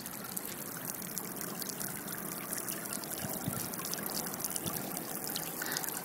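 Thin jets of water from a splash-pad sprayer spattering onto wet concrete and onto a child's face: a steady trickling patter with many small droplet ticks.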